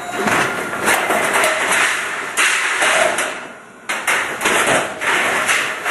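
Hydraulic breaker on an electric mini excavator hammering in rapid blows, in bursts, stopping for about a second and a half midway and then starting again.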